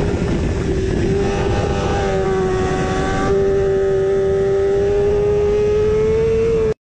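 Sportbike engine pulling hard in sixth gear at around 180 mph: a steady high engine note over heavy wind rush, climbing slightly in pitch in the second half. It cuts off abruptly near the end.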